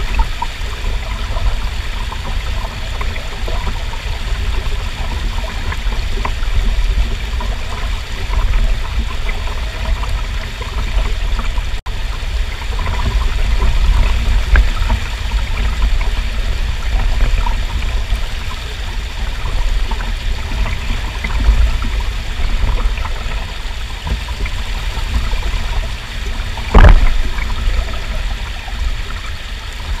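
Mountain stream water rushing steadily, with a deep rumble underneath. The sound drops out for an instant about twelve seconds in, and a single sharp thump, the loudest sound, comes near the end.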